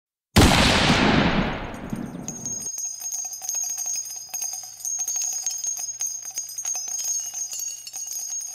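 Intro sound effect: a loud bang about a third of a second in that dies away over about two seconds, followed by a bell-like jingling with many small clicks that fades near the end.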